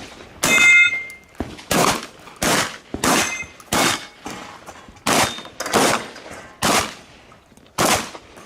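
A string of about nine shotgun shots over eight seconds, irregularly spaced as the shooter moves between targets. Some shots are followed by a brief metallic ring from struck steel targets.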